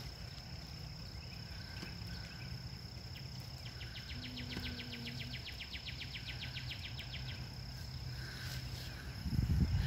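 Outdoor birdsong and insects: a fast, even trill and soft repeated chirps over a steady high-pitched insect whine, with a low hum of distant traffic. A louder low rumble comes near the end.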